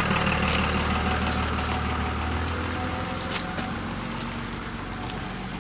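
A large vehicle's engine running steadily with a low hum that fades gradually toward the end, with a few light clicks over it.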